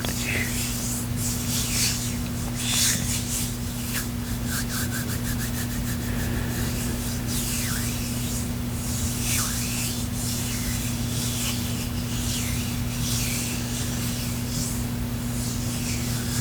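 Hands rubbing against each other: a run of dry, scratchy skin-on-skin swishes, with a quick patter of clicks a few seconds in, over a steady low hum.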